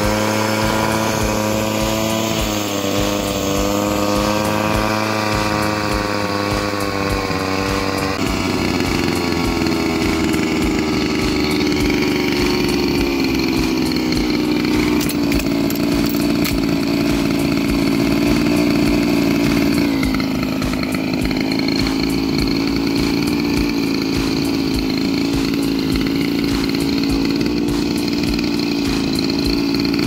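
Small two-stroke engine running steadily at speed while it turns an air-conditioner fan motor used as a generator. Its pitch drops suddenly about eight seconds in and dips briefly again about twenty seconds in.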